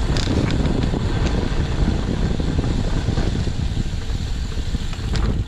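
Wind buffeting the microphone while riding a bicycle at speed, with a steady low rushing and rumble and a few light clicks.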